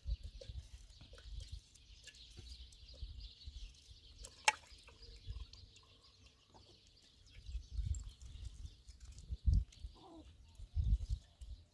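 Outdoor ambience: hens clucking faintly in the background over irregular low rumbling from wind on the microphone, with one sharp click about four and a half seconds in.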